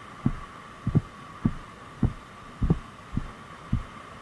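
Footsteps picked up as dull thumps through a body-worn camera, a walking pace of a little under two steps a second, over a steady hum.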